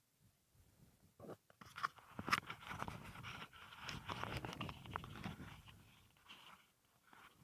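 Long, dry bank grass rustling and crunching as it brushes and scrapes against the camera, in a dense run of crackles that starts about a second in and fades near the end.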